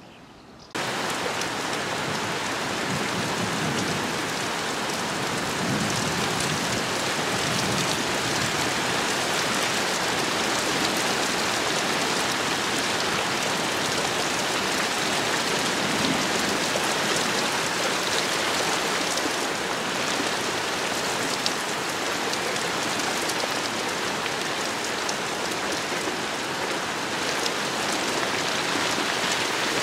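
Heavy rain falling steadily, a dense even hiss that starts suddenly about a second in.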